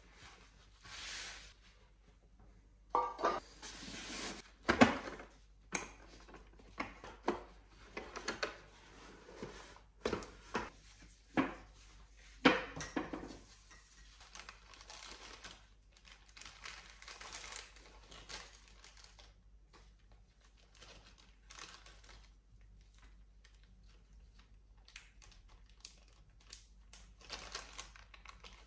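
Tabletop handling sounds: a run of sharp knocks and clatter as metal tins, glass bowls and a hand-held rotary tool are moved and set down on a hard table, the loudest knocks about five and twelve seconds in. This gives way to softer crinkling and ticking of plastic bags and a plastic parts box as rotary-tool sanding bands and bits are unpacked.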